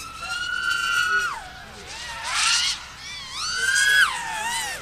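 Racing quadcopter's motors and propellers whining in flight, the pitch swinging with the throttle: a high steady whine that drops after about a second, then climbs sharply around three seconds in and falls away again near the end.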